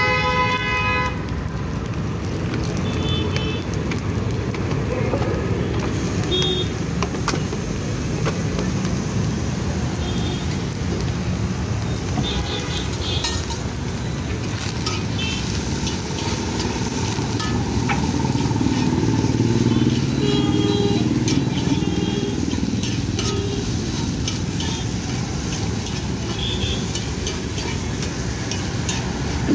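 Steady street traffic rumble, with a steel spatula clicking and scraping on a flat iron griddle as fried rice is stirred. A brief pitched tone sounds at the very start.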